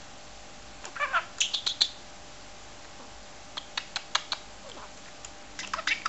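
Pet budgerigar talking in its high, squeaky mimic voice, chattering the phrases "'ello Philip, come on, tickle tickle tickle" in short bursts about a second in and again near the end, with a few sharp clicks between.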